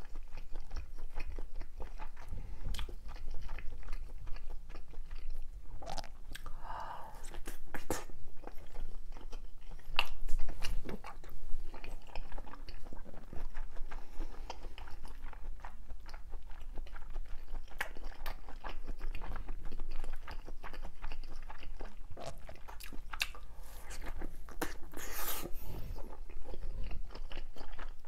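A person biting and chewing a fried fish cake bar close to the microphone, with a run of irregular bites and wet mouth clicks; the loudest bites come about ten seconds in.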